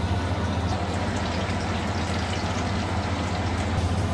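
Kurkure momos deep-frying in hot oil: a steady sizzle, over a constant low hum.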